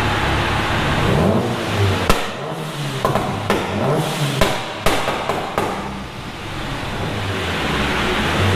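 The turbocharged 2.0-litre 4G63 four-cylinder of a 500 hp Mitsubishi Lancer Evolution IV on a dyno, running hard and then coming off the throttle. About seven sharp exhaust bangs and pops crack out between two and six seconds in over a low, uneven burble. The revs climb again near the end.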